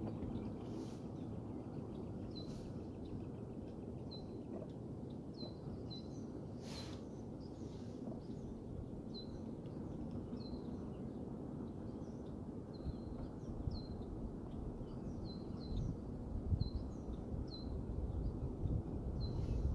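A small songbird chirping over and over, short high chirps about once a second, over a steady low outdoor rumble that grows a little louder near the end.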